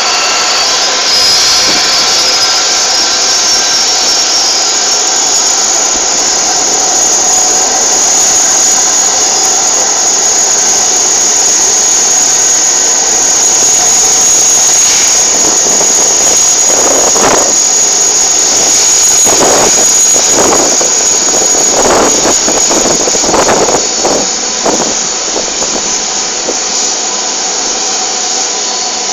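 Jet airliner engines running with a loud, steady, high-pitched whine. Uneven rushing surges come through about halfway in, and the highest part of the whine fades near the end.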